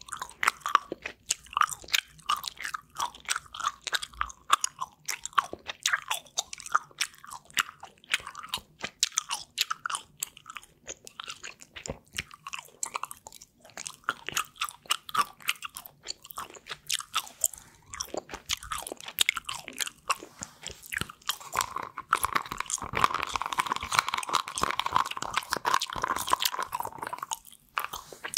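Gum chewing close to the microphone: a steady stream of quick, wet mouth clicks and smacks. For a few seconds near the end the sound thickens into a denser rustling noise.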